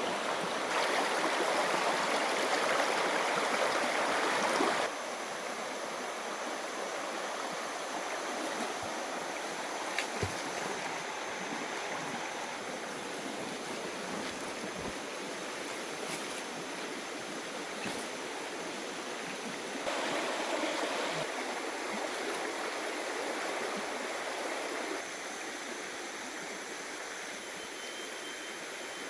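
Rushing water of a rocky mountain river, a steady wash of noise that swells louder for the first few seconds and again for a few seconds past the middle, with a few faint knocks.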